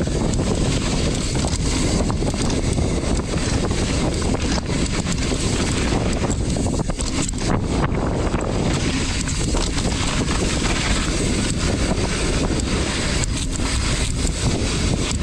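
Wind buffeting the microphone of a camera on a moving mountain bike, a steady loud rumble, with the bike clattering and knocking over the rough trail.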